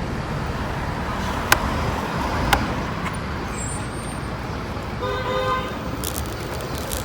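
Wind and road noise while riding an electric bike along a street, with a short vehicle horn toot about five seconds in. Two sharp clicks come earlier.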